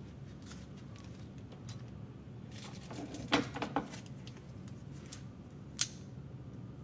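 A few soft crinkles and sharp taps from a clear plastic bag of model-kit sprues being handled on a tabletop, the loudest cluster about halfway through and one more tap near the end, over a steady low hum.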